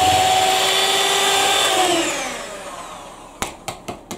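Electric hand mixer running steadily with its beaters in cake batter, then switched off about two seconds in, its motor whine sliding down in pitch as it winds down. A run of sharp taps follows near the end.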